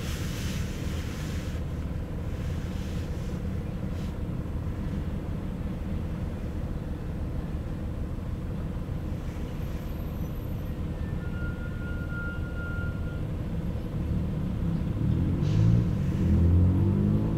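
Steady engine and tyre rumble of a car driving along a highway at constant speed. Near the end a rising engine tone comes in and the noise grows louder.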